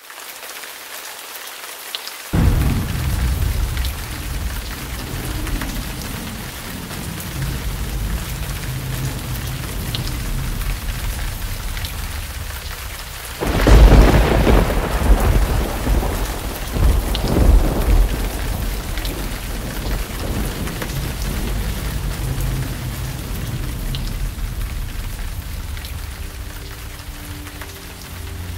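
Steady rain with thunder. A low rumble sets in about two seconds in, and a louder peal of thunder rolls from around the middle for several seconds before settling back under the rain.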